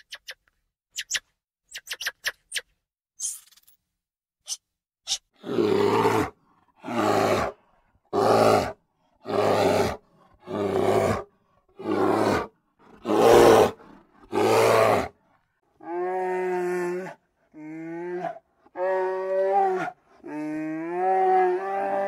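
Short, high chirps and clicks, then a big cat roaring in eight evenly spaced bursts a little over a second apart, followed by a series of long, pitched animal calls.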